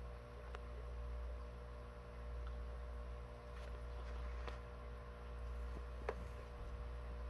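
Steady low electrical hum with a few faint, short clicks scattered through it.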